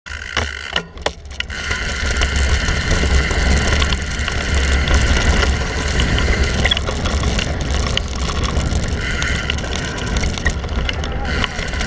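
Mountain bike rolling fast down a dirt singletrack, heard from a handlebar camera: tyres on loose dirt, the bike rattling over bumps, and a steady high buzz from the coasting freewheel hub. Wind rumbles on the microphone underneath.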